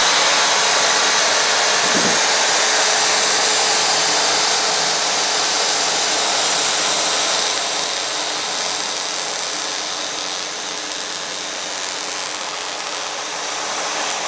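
A cordless drill runs steadily, spinning a slant-six distributor so that its ignition points open and close and fire the coil, the spark jumping from the coil lead to ground. The speed stands for about 1300 engine rpm, just off idle. The level drops a little past the middle.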